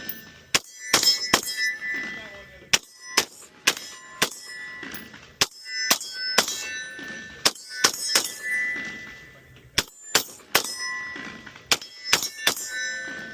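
Gunshots fired in irregular succession, many followed by the metallic ringing of struck steel targets.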